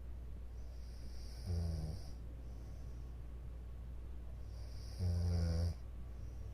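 A woman in deep sleep snoring: two snores about three and a half seconds apart, each a low, pitched rattle of under a second with a breathy hiss.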